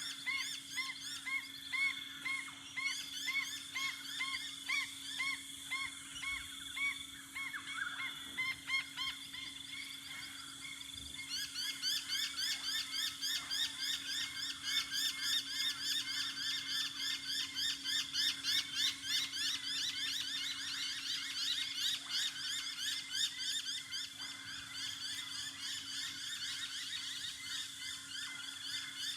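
Dawn bird chorus. At first one bird repeats a rising call about twice a second; from about a third of the way in, a dense chorus of rapid, repeated chirps from several birds takes over. A faint steady hum runs underneath.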